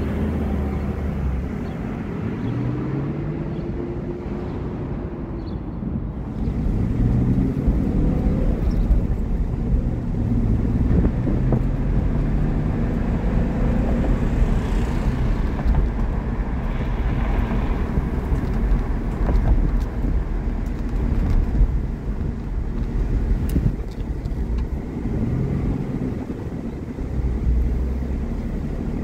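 Nissan 300ZX Twin Turbo's 3.0-litre twin-turbo V6 being driven, its engine note rising in pitch as it accelerates and dropping back between pulls. It is heard first from outside the car and then from inside the cabin, louder from about six seconds in.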